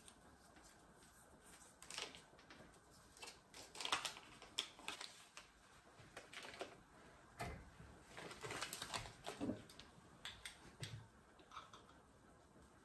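Scattered light clicks, taps and crinkling paper as a stick of butter is unwrapped by hand, in bursts between about two and eleven seconds in.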